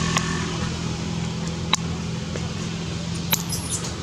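Steady low motor hum, with a few sharp clicks and a brief run of very high squeaks a little after three seconds in.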